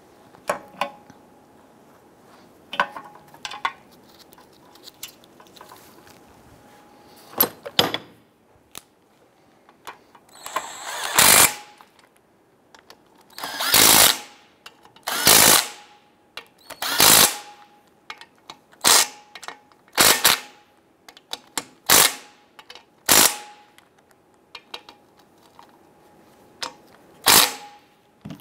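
Cordless impact wrench running in short bursts, driving in the bolts that fasten a new radiator fan blade to its fan clutch. There is one longer run about ten seconds in, then about eight short blips spread over the rest. Before that, only light clicks of bolts and metal parts being handled.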